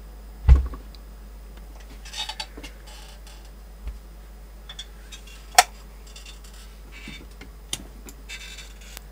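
Handling noise on a workbench: a low thump about half a second in, then scattered rustles and a few sharp clicks, one about five and a half seconds in, over a steady low hum.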